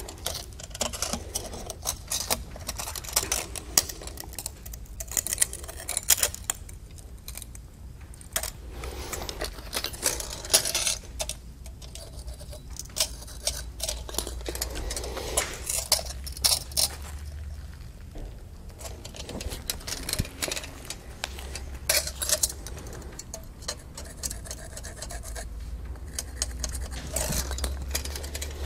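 Irregular small clicks, clinks and scrapes of a steel tape measure and pencil against clay pavers as they are measured and marked, over a low steady hum.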